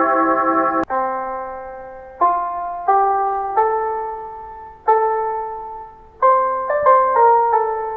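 A Japanese municipal disaster-prevention radio chime, an electronic piano-like chime melody played over the town's public loudspeaker system. A held chord cuts off just under a second in, then a slow tune of single struck notes follows, each fading before the next, coming quicker near the end.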